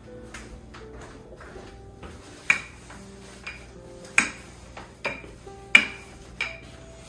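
Wooden rolling pin clacking sharply against a granite countertop as dough is rolled out: about five knocks in the second half, over soft background music.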